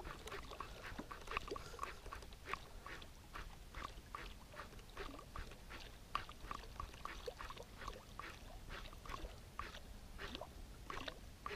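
Faint, irregular water splashing and ticking as a musky lure is swept through the water beside the boat.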